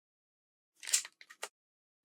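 DSLR camera shutter firing: one sharp click about a second in, then three fainter, quicker clicks.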